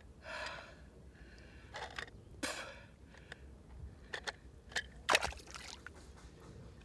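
A man gasping and breathing hard under strain, three breaths in the first three seconds, then a handful of sharp clicks from about four seconds in, the loudest just after five seconds: a key being worked in a handcuff lock.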